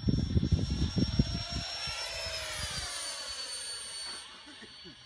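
A 75 mm electric ducted fan on a 6S battery, powering a model jet in flight, whining high overhead. Its pitch rises and then falls as the jet passes, and the whine fades away near the end. Low gusty rumbling on the microphone covers the first second and a half.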